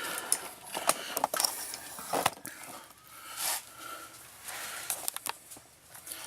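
Scattered light clicks and knocks of tools and parts being handled, with a short rustle about three and a half seconds in.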